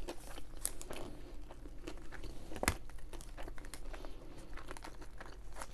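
Close-miked chewing of a burger: a run of small, wet mouth clicks and soft crackles, with one sharper click about two and a half seconds in.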